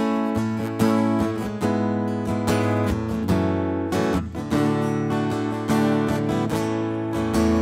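Acoustic guitar strummed in steady chords, an instrumental passage of a song.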